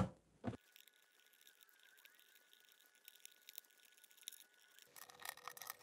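Mostly near silence, with a few faint clicks and scrapes, more of them near the end, as a small flat screwdriver pries a chip up out of its socket on a Commodore 64 motherboard.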